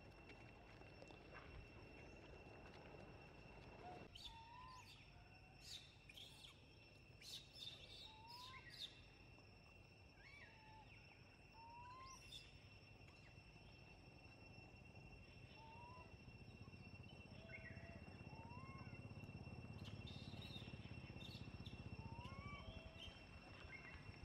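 Faint forest ambience: a steady high insect drone, with short rising calls repeating every second or two from about four seconds in and a few brief high bird chirps.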